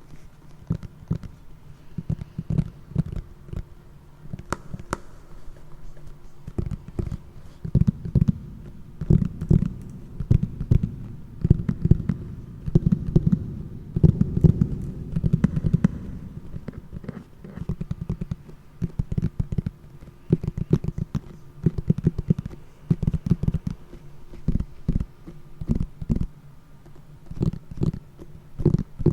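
Close-miked ASMR tapping and rubbing: rapid, dull, low taps in bursts of a second or two, with short gaps between them.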